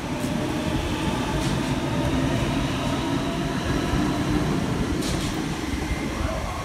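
Sydney Trains Waratah A-set double-deck electric train pulling out of the platform and running past at close range: a steady rolling rumble with faint motor tones and a few light clicks.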